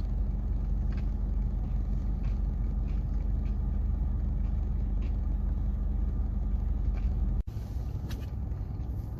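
Steady low rumble of an idling car heard from inside the cabin, with a few faint light clicks and a brief dropout about seven and a half seconds in.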